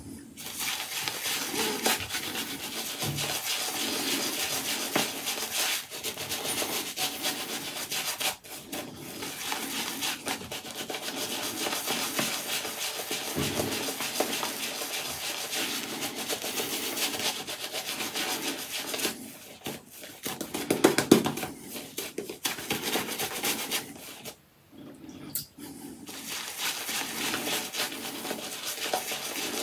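Apshave Cashmere 28 mm shaving brush working soap lather over the face: continuous brisk rubbing and swishing of wet bristles on skin, stopping briefly twice in the later part.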